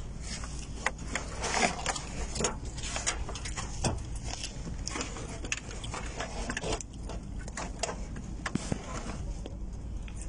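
Irregular knocks, clicks and rustling as a floor covering in a bus aisle is lifted and handled, over a low steady hum.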